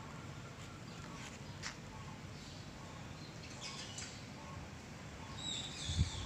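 Faint chirping of small birds over a low outdoor background hum, with a short run of brighter high chirps near the end. A few low thumps come in the last half second.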